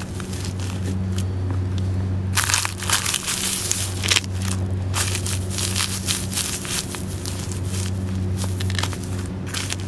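Dress boot soles crushing and grinding a stack of crackers: dense crunching and crackling, heaviest from about two and a half to four seconds in and again a little after five seconds, over a steady low hum.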